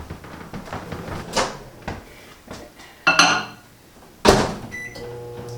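Microwave oven being loaded and started: the door clunks open, then bangs shut about a second later, a few short keypad beeps follow, and the oven starts running with a steady hum near the end, warming milk.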